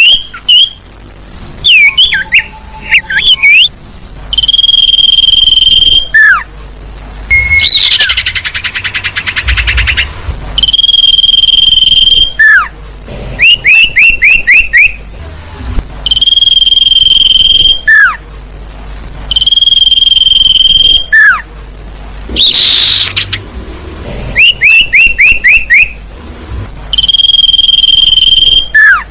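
Looped bird-lure recording of sirtu bird calls: long, steady, high whistles alternating with quick series of short downward-sweeping chirps, with one rapid trill in the middle. It plays loud, near distortion.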